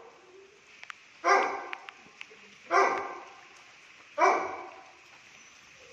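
A dog barking three times, evenly spaced about a second and a half apart.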